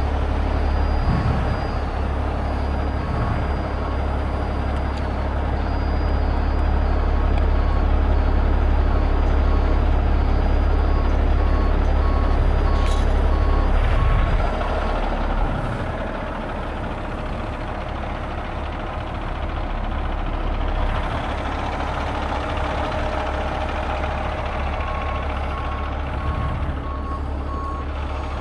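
Heavy tow truck's diesel engine running with a reversing alarm beeping at a steady pace; the beeping stops about halfway through and starts again near the end.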